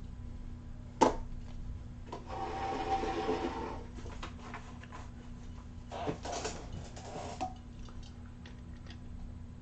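A sharp click about a second in, then two stretches of rubbing or scraping, the first about a second and a half long and the second near the end, over a low steady hum.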